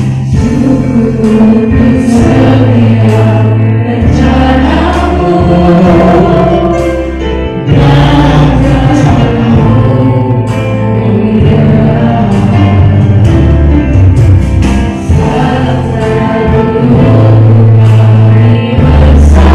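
Christian praise-and-worship song: several voices singing together over amplified backing music with a deep bass line.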